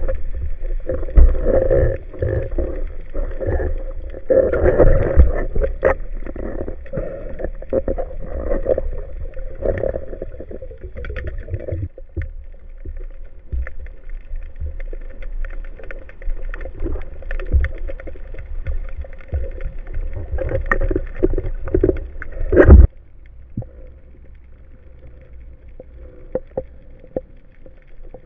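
Muffled underwater sound picked up through a camera housing. Water rushes and rumbles, with a scatter of knocks and taps as the speargun and a speared barracuda are handled. About 23 seconds in it cuts to a much quieter, steady underwater hush.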